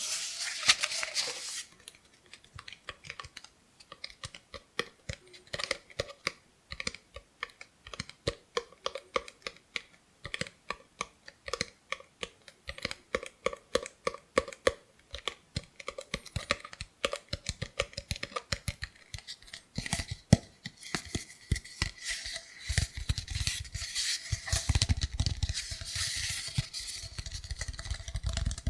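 Fingers tapping a cardboard kitchen paper-roll tube in a steady run of light taps, several a second, turning to denser scratching and rubbing with a low rumble over the last several seconds.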